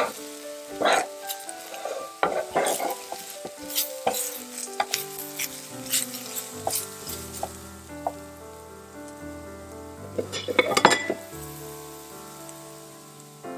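Onions and ground spices sizzling in a stainless steel frying pan, stirred and scraped with a silicone spatula in quick strokes, most busily in the first half and again in a loud burst of stirring near the end.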